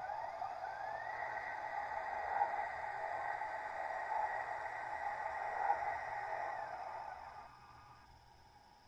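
A model locomotive's sound decoder plays E 95 electric locomotive sound through a small speaker. The motor whine rises in pitch over the first second as the locomotive starts off, holds steady, then falls and fades about seven to eight seconds in as it slows.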